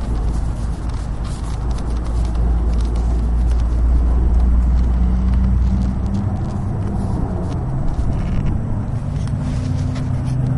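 Low, steady rumble of a car heard from inside the cabin. The rumble eases about six seconds in, leaving a steady hum.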